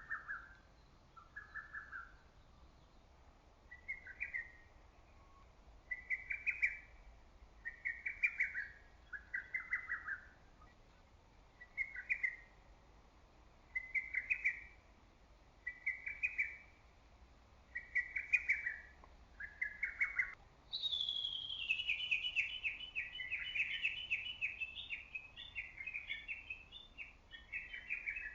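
Lesser cuckoo calling: short, loud phrases of clipped notes repeated about every two seconds. About 21 seconds in, a longer rapid run of chattering notes begins high and falls, continuing to the end.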